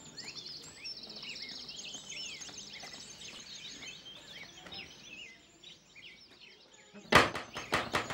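Birds chirping and trilling, then about seven seconds in a quick run of loud knocks on a wooden door.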